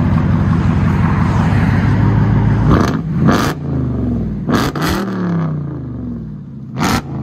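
Supercharged 6.2-litre Hemi V8 of a Dodge Charger Hellcat Redeye, on a 2.5-inch exhaust with the X-pipe, mufflers and valves deleted and the factory converters kept, being revved. It is held high for about three seconds, then let fall, followed by a few quick rev blips whose pitch drops back each time, with a short sharp burst of noise at each one.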